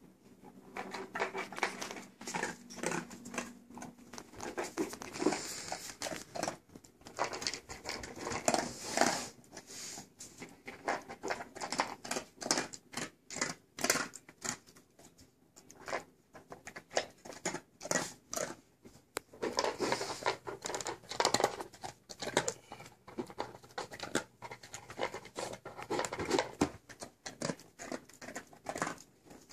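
Rottweiler eating dry kibble from a bowl: irregular crunching and chewing, with short pauses.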